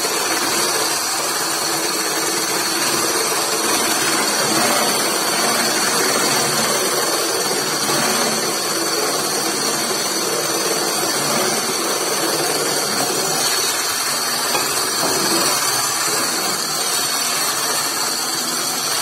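Electric hand blender with a whisk attachment running steadily at one speed, whipping eggs, milk and hot water into foam in a plastic bowl. Its motor gives an even whirr with a steady high whine.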